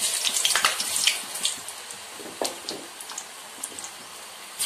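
Gram-flour-battered potato fingers sizzling in hot deep-frying oil in an aluminium kadai as they are dropped in. The hiss and crackle are loudest for the first second or so, then settle to a steady sizzle with scattered pops.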